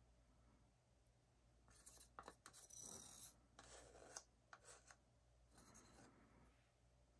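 Faint scraping of a wooden stick against the inside of a small cup, scooping thick fabric paint out, in several short strokes starting a little under two seconds in.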